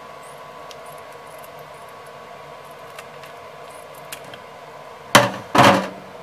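Scissors snipping open a plastic-foil sauce sachet in a few small sharp clicks, over a steady background hum. Near the end come two loud crackles as the opened sachet is handled.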